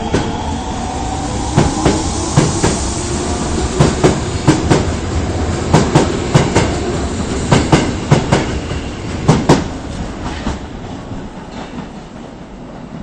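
Osaka subway 22 series electric train pulling out and picking up speed. Its motors give a rising whine at first, and its wheels clack in pairs over the rail joints as the cars go by. The sound fades away after about ten seconds as the train leaves.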